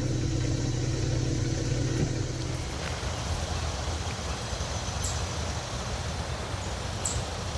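A steady low motor hum that stops about two and a half seconds in, leaving an even rumbling noise with a couple of faint ticks.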